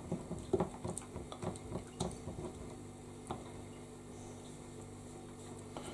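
Faint, soft squelching and small clicks of a hand squeezing and mixing banana bread batter in a glass bowl, dying away after about three seconds.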